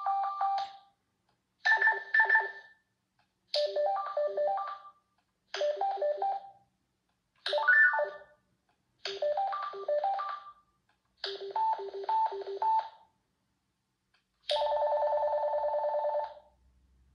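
Wishouse two-way radio's speaker playing its selectable call tones one after another: short electronic beeping melodies, a different one about every two seconds, ending with one steady tone that lasts about two seconds.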